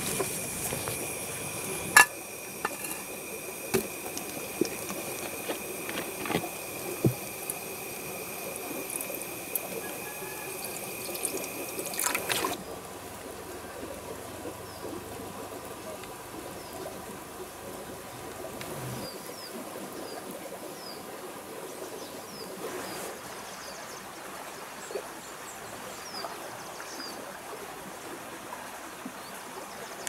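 A frying pan of water heating on a portable gas stove: a steady hiss as small bubbles form. Faint short high chirps come through it. A steady high whine and a few sharp clicks fill roughly the first third, before a sudden change in the sound.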